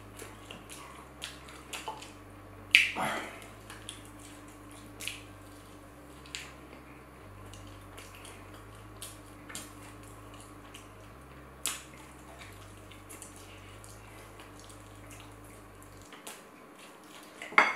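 Close-miked eating sounds: sparse wet mouth clicks and smacks of chewing, with a louder bite about three seconds in and another near the end.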